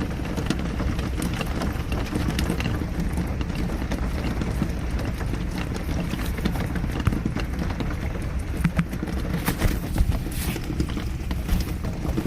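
Rain with a dull low rumble, and large drops knocking irregularly on a surface close by.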